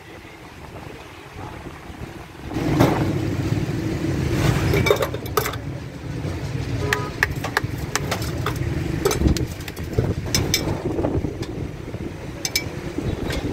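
Street traffic and engines running steadily, getting louder about two and a half seconds in, with many sharp clinks of glass and steel as bottles, tumblers and a spoon in a jar are handled.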